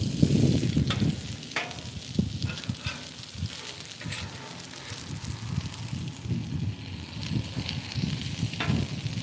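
Chicken and fried rice sizzling on a hot flat-top griddle while two metal spatulas scrape and clack against the steel, pushing the chicken into a pile. A louder low rumbling noise comes in the first second or so.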